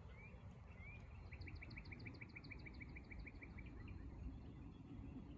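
Faint songbird song: two short rising whistled notes, then a rapid, even trill of about sixteen notes lasting over two seconds, over a steady low background noise.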